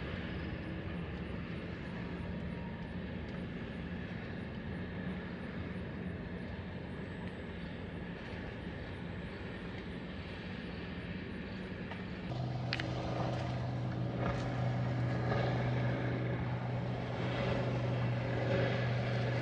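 A steady low engine drone over outdoor background noise. About twelve seconds in it abruptly gets louder, with a deeper, stronger hum and a few clicks.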